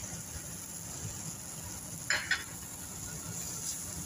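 Diced vegetables sizzling in a stainless steel pan as a wooden spoon stirs them, with one short louder burst about two seconds in.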